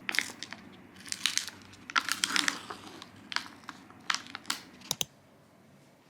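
Crinkly wrapping being handled: a run of short crackles and rustles that stops about five seconds in.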